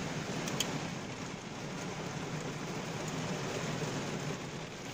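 Steady rushing noise with a low hum inside a car cabin, as from the car's engine and ventilation running, with one sharp click about half a second in.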